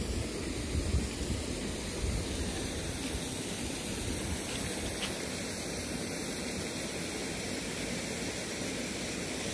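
Water running steadily from a drinking-water tap: an even rushing hiss.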